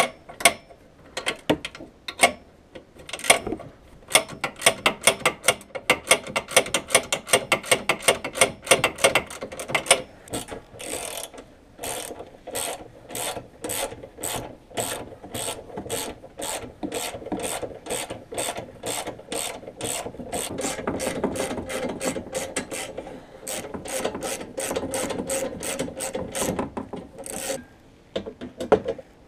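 Hand socket ratchet clicking in quick runs of strokes, about four clicks a second, as bolts are worked loose.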